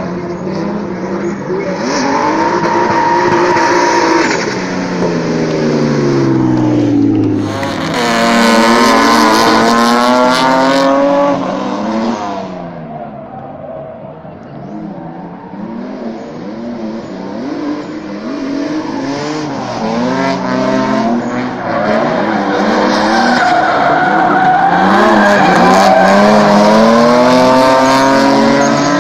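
A drift car's engine revs up and down again and again as it slides through the course, with tyre squeal and skidding. It is loudest about a third of the way in, drops to a quieter lull midway, then builds again near the end.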